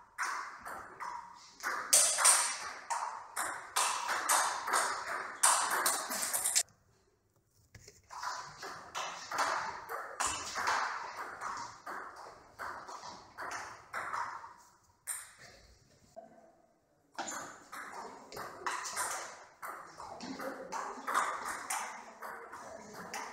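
Table tennis rallies: the ball clicking off the paddles and bouncing on the table in quick succession. The clicking stops briefly twice, about 7 and 16 seconds in, between rallies.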